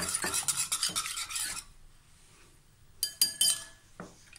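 Wire whisk beating eggs in a glass bowl, quick strokes ticking against the glass, which stop about a second and a half in. About three seconds in, the whisk clinks against the bowl with a brief ring, then gives a light knock.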